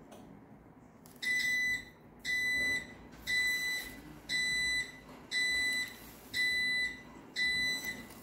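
Linear LDCO850 garage door opener's beeper, running on backup battery, sounding seven evenly spaced high beeps of about half a second each, one a second. It is a seven-beep error code, which the manual gives as the encoder having detected an error.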